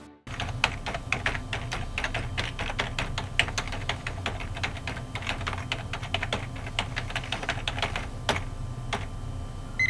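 Typing on a computer keyboard: a quick, continuous run of keystroke clicks that thins to two separate taps near the end. A steady electronic beep starts right at the end.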